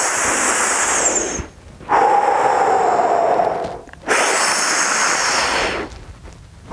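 A man breathing deeply and audibly during a diaphragm-breathing stretch, in long slow breaths with short pauses between. The exhales are blown out through pursed lips with a faint falling whistle-like tone.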